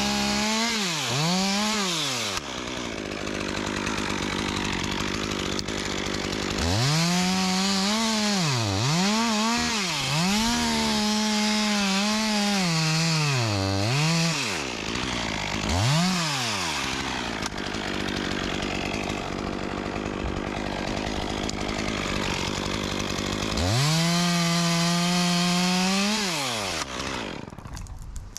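Two-stroke chainsaw revved repeatedly from idle to full throttle in short bursts as it cuts branch wood, then held at full revs for a longer cut of a couple of seconds before dropping back near the end.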